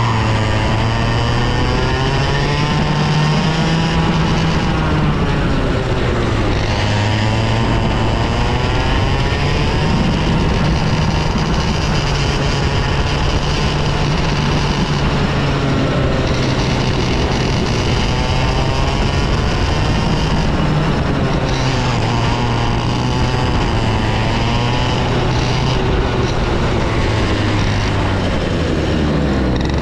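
Two-stroke TaG cadet racing kart engine running hard on a circuit, its pitch rising and falling over and over as it accelerates down straights and eases off for corners.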